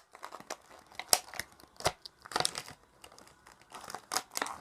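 Doll packaging crinkling and tearing in irregular crackles and sharp clicks as a doll is worked free of the ties holding its legs to the box.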